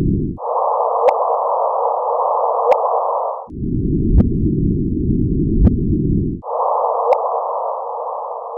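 Electronic space-data sonification of the kind presented as the sound of a planet: dense hiss that switches between a low rumble and a higher band every three seconds or so, with sharp ticks about every one and a half seconds.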